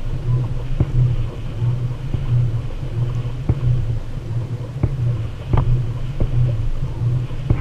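Low rumble carried through a fishing kayak's hull, pulsing evenly a little under twice a second, with a few sharp knocks scattered through it.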